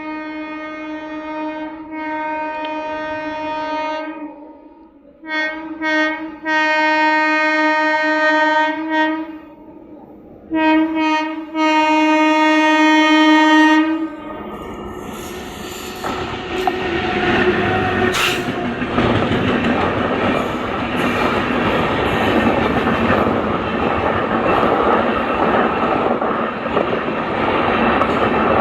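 Indian express train's locomotive horn sounding a series of about five blasts, some long and some short, for the first fourteen seconds, then the train passing through the station at speed with a loud, steady noise of wheels on the track.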